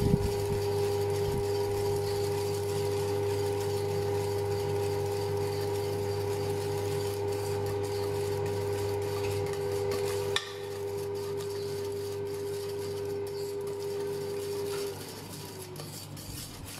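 Wire whisk stirring and scraping egg and sugar in a stainless steel bowl over a bain-marie, over a steady electrical hum from the induction hob. The hum drops in level about two-thirds through, and its main tone slides down and stops near the end.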